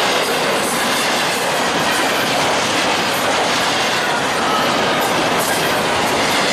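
Double-stack intermodal freight train's well cars rolling past: a steady, loud rush of steel wheels on rail, with scattered clicks.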